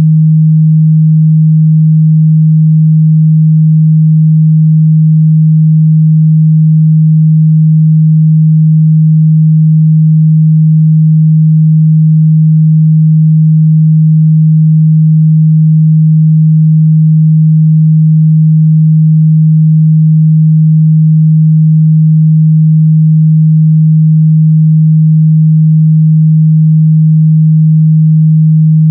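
A steady, loud 157 Hz sine-wave test tone: a single low hum held at constant pitch and level, used to check a speaker's or headphones' mid-bass response.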